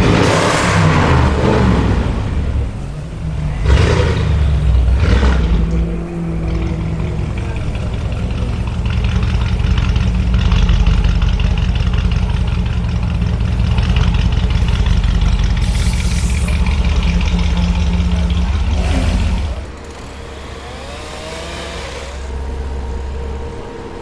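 Audi RS6 Avant's twin-turbo V8 through a Capristo aftermarket exhaust, blipped a few times with sharp exhaust crackles in the first few seconds, then running steadily at low revs. About twenty seconds in it drops to a quieter level.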